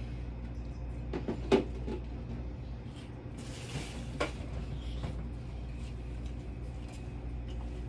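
A few sharp knocks and clicks, the loudest about one and a half seconds in, and a short rustle near the middle, over a steady low hum.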